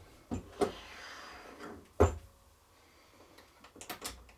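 Single-stage reloading press being cycled: two light clicks early, a sharp metallic knock about two seconds in as the handle bottoms out, then a quick run of small clicks near the end as the handle is raised and the cartridge case is handled at the shell holder.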